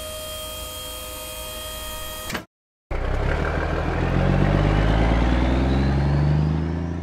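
Cartoon sound effects: a steady mechanical hum for about two and a half seconds as a dump truck's tipper bed lowers. After a short gap, a truck engine starts and revs steadily higher as the truck pulls away, fading out near the end.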